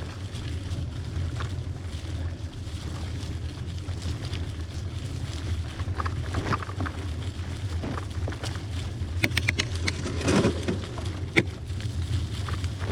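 Wind rumble on the microphone and the tyres of a hybrid bicycle rolling over a dirt trail, with a few short knocks and rattles from the bike late on, the sharpest about eleven seconds in.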